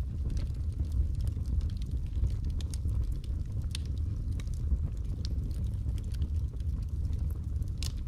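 Wood fire burning in an open fireplace: a steady low rumble of flame with scattered sharp crackles and pops from the burning logs.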